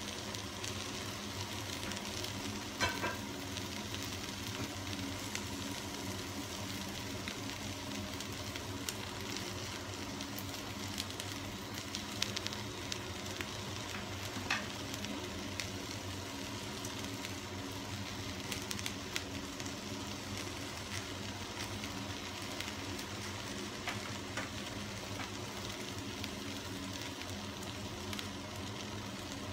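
Chopped food frying in a stainless steel pot, a steady sizzle with a few sharp crackles.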